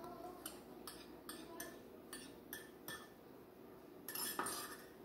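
A metal spoon tapping and scraping against a small clear bowl, in a run of light clinks about two a second as the bowl is emptied, then a louder clatter of several clinks about four seconds in.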